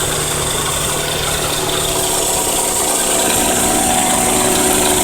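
1992 Toyota Camry's four-cylinder engine running steadily with a knocking noise. The knock began after the engine ran low on oil and cut out, which points to internal damage from oil starvation.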